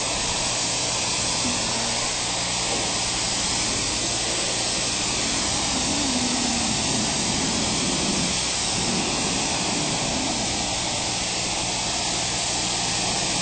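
Self-serve car wash pressure wand spraying water onto a car: a steady, even hiss of spray, with a low hum underneath.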